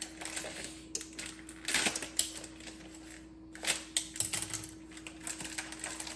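Irregular clicks, taps and rustles of things being handled in a kitchen, over a steady hum.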